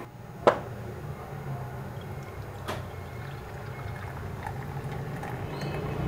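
Milky tea pouring from a teapot spout into a cup, over a low steady hum. A sharp click about half a second in.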